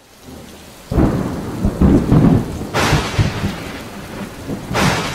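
Thunderstorm sound effect: rain hissing, with thunder rumbling in about a second in and rolling on in swells.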